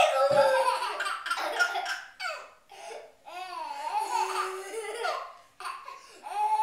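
A baby laughing in repeated bursts, loudest right at the start, mixed with a young boy's and a woman's laughter.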